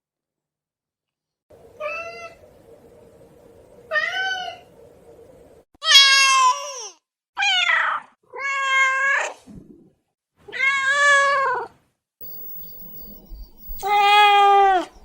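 Cat meowing repeatedly: about seven meows, several falling in pitch, the later ones longer and louder.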